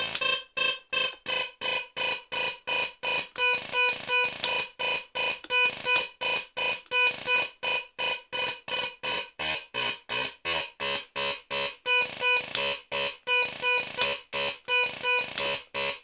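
MFOS Weird Sound Generator synth circuit (without its filter) run through a Deep Blue delay, putting out a rapid, alarm-like stream of chopped electronic tones, about three pulses a second. The tone shifts about halfway through as lower notes come in.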